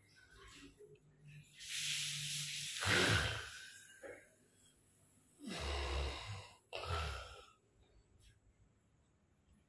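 A person snoring: one long, rasping snore near the start, then two shorter snores a little later.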